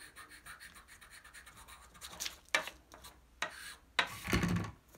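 Soft charcoal stick scratching across drawing paper in shading strokes: faint, rapid back-and-forth strokes at first, then from about two seconds in a few heavier, separate strokes.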